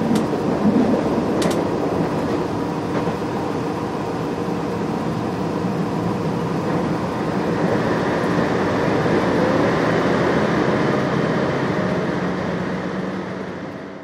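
Steady running noise of a JR Shikoku 2700 series diesel limited express heard inside the passenger car: engine drone mixed with wheel and rail rumble, fading out near the end.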